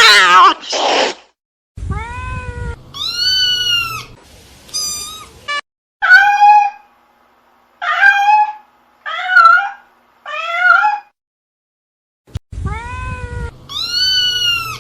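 A cat meowing over and over, about ten separate meows. The first, at the very start, is the loudest and has a rapid warble. After a short pause there is one last longer meow near the end.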